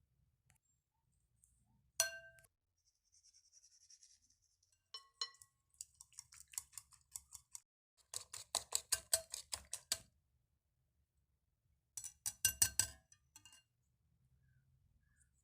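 Kitchen utensil clinking against a bowl: one ringing clink about two seconds in, then three bursts of rapid, regular clinking at several strikes a second.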